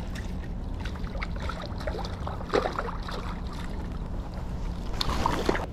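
Hooked sheepshead splashing at the surface beside an inflatable kayak as it is brought in, with bursts of splashing about two and a half seconds in and again near the end, over a steady low rumble.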